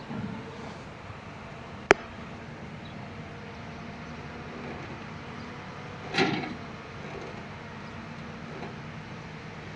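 Hands working inside the metal access compartment of an engine-driven welding generator: a sharp metallic click about two seconds in and a brief clattering knock around six seconds, over a steady background hum.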